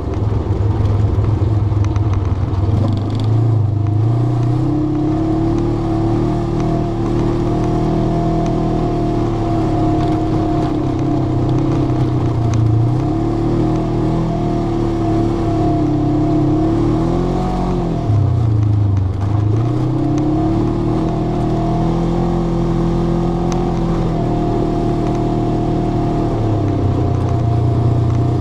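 ATV engine running continuously as the vehicle drives, its pitch rising and falling with the throttle, with clear dips and climbs about two-thirds of the way through and again near the end.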